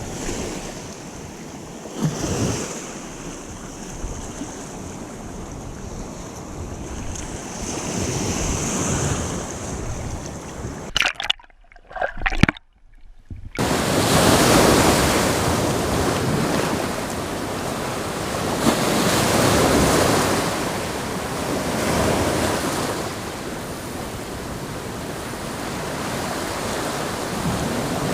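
Ocean surf washing against the shore, rising and falling in slow swells every few seconds, with wind buffeting the microphone. The sound drops out briefly about eleven seconds in, and the surf is louder after the gap.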